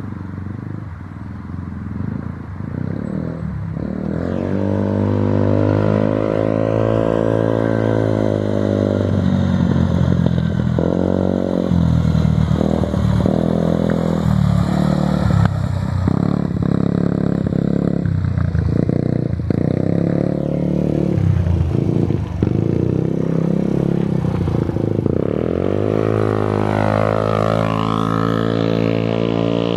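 Yamaha Raptor 90 ATV's small single-cylinder four-stroke engine through a Big Gun Evo full exhaust. It runs lower for the first few seconds, then is revved up and down over and over, with a long climb in pitch near the end.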